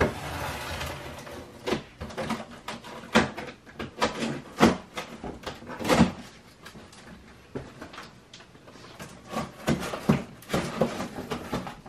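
Cardboard box being opened and its contents handled: irregular knocks, clicks and scrapes, with a short rustle at the start.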